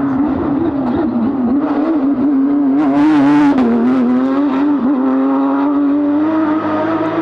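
Porsche 992 rally car's engine running hard at a steady high note that wavers up and down, with a louder, rougher surge about three seconds in.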